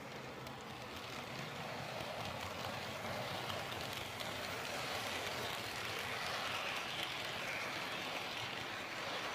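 HO-scale model TGV train running past on the track: a steady whirring rattle of its motor and wheels on the rails, growing louder as it comes close.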